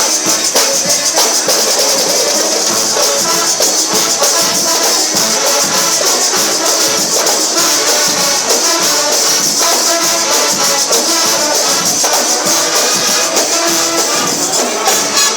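Loud, continuous music with brass and busy percussion: rattling shakers or cymbals over a steady beat.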